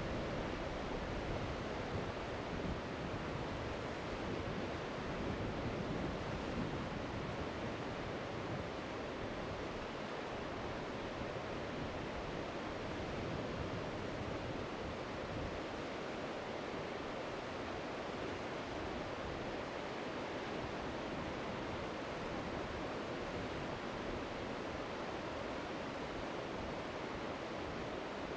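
Ocean surf breaking: a steady, even wash of waves, with no single crash standing out.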